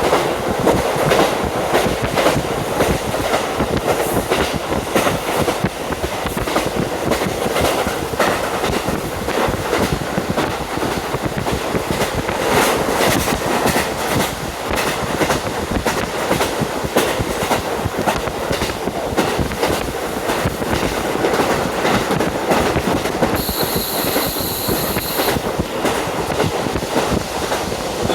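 Cabin of a JR Hokkaido KiHa 40 diesel railcar under way, with wind rushing in through an open window and the wheels clicking over the rail joints. A high-pitched steady tone sounds for about two seconds near the end.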